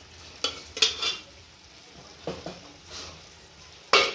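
Steel ladle scraping and knocking against the inside of a pressure cooker as the last of the cooked toor dal is scraped out into the pan. There are several metal clinks, with the loudest clank near the end.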